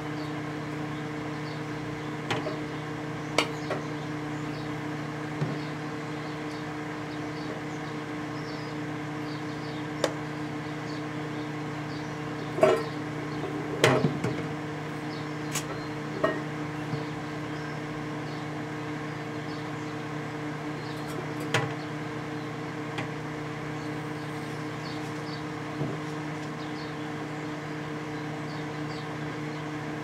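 A 1988 Samsung microwave oven running with a steady hum while microwaving a mercury vapor light bulb. Sharp pops and crackles of arcing break in about ten times, the loudest cluster near the middle.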